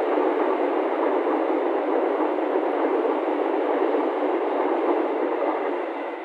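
Passenger train coaches passing at speed: a steady rushing noise of wheels on the rails, fading near the end as the tail of the train goes by.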